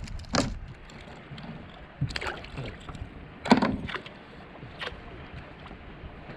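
Four short splashes and knocks at a fishing kayak over a steady hiss of wind and water; the loudest comes about three and a half seconds in.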